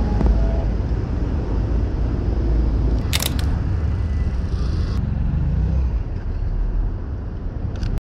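Steady street noise with a low rumble of traffic. About three seconds in, a camera shutter fires: a quick cluster of sharp clicks.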